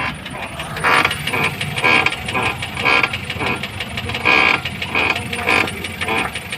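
Maruti Suzuki Ertiga's front left suspension creaking and clicking over and over, about two creaks a second, as the steering is turned on the ground. The noise comes from a damaged bearing in the front shock absorber's top mount, which turns with the steering.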